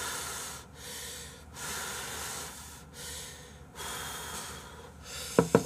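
A man slurping ramen noodles in about five long sucking slurps with short breaks between them.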